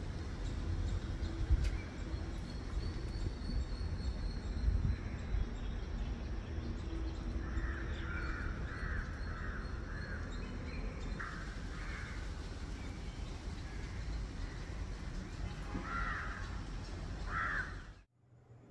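Crows cawing over a steady low outdoor rumble: a run of about five caws in the middle, then two more near the end, before the sound cuts off suddenly.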